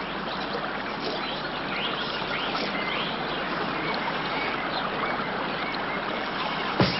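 Flowing river water, a steady rush, with birds calling repeatedly over it. A sharp hit comes just before the end.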